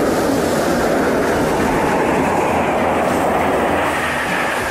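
Jet engines of a low formation of Su-25 ground-attack aircraft passing overhead: a loud, steady rumble.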